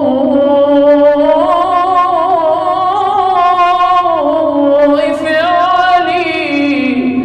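A man's voice chanting an Arabic supplication in a melodic, maqam-style recitation, drawing out long wavering notes that glide up and down in pitch.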